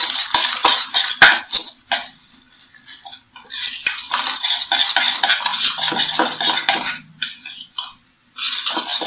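Wire whisk beating a semolina and yogurt batter in a bowl, its wires clicking and scraping against the bowl in quick strokes, with short pauses about two seconds in and near the end. The batter is being whisked until no lumps remain.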